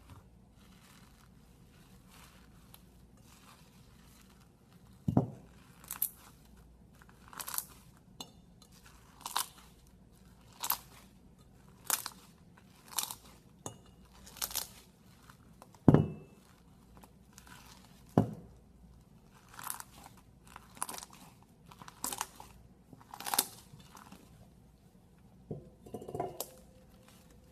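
Slime being pressed and squeezed by hand, giving a crisp crunchy crackle about once a second, with a few dull thumps among them.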